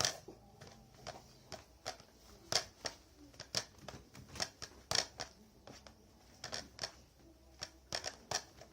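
Sticky, not-yet-finished white-glue slime being worked and stirred, giving irregular sharp wet clicks and pops about once or twice a second.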